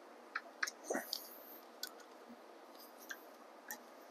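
Hex key tightening chainring bolts on an e-bike chainring spider: scattered light clicks, with one louder knock about a second in.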